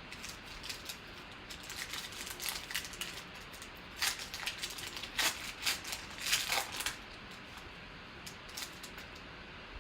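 Foil trading-card pack wrapper crinkling and tearing as it is opened, with the cards rustling as they are handled; the handling is busiest in the first seven seconds and then settles.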